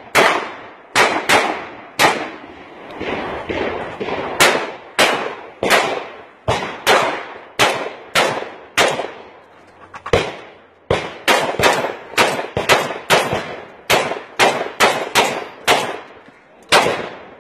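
Rapid rifle fire during a 3-gun stage: about thirty sharp shots, most about half a second apart, each with a short echoing tail, with a brief break of about a second near the middle.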